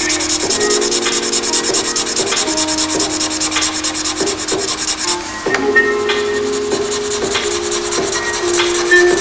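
Felt-tip pen scratching rapidly back and forth on paper as an area is coloured in, with a brief pause about five seconds in. Background music with sustained low notes plays underneath.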